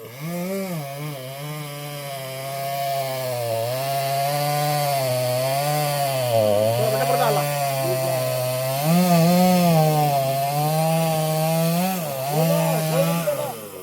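Chainsaw cutting into wood, its engine running at a high, wavering pitch that sags briefly about six seconds in and again near the end as the chain takes load.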